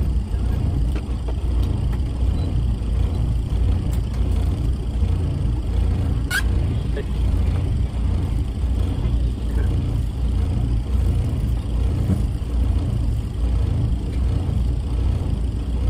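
Low, steady rumble of a motorboat's engine running. A brief sharp click sounds about six seconds in.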